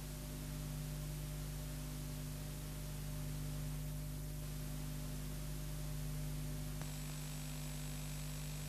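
Steady electrical mains hum with hiss on the audio of a satellite TV test feed, with no programme sound. A click about seven seconds in, after which a faint high whistle joins the hum.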